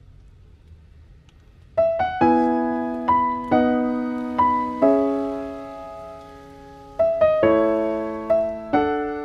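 Gentle background piano music, starting about two seconds in with a run of struck notes and chords that ring and fade. Before it there is only a faint low hum.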